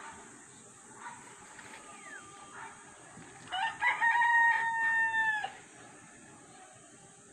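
A rooster crowing once: a single call of about two seconds, beginning about halfway through.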